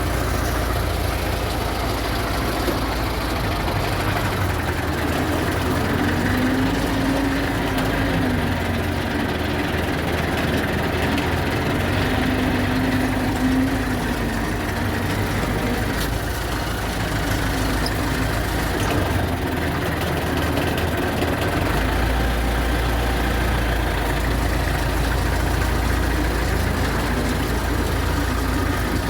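MTZ-50 tractor's four-cylinder D-50 diesel engine running steadily, with a low hum that swells and fades a few times in the first half.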